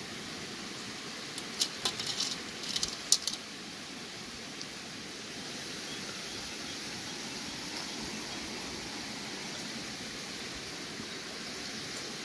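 A quick run of light, sharp clicks and clinks from food and a spoon being handled while eating, about one and a half to three seconds in, over a steady rush of a nearby stream.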